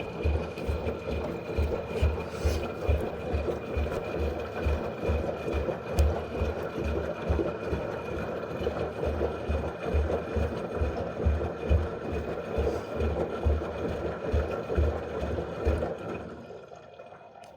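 LG washing machine running: a steady whine over churning, with low thumps a few times a second as the drum turns. It dies away near the end.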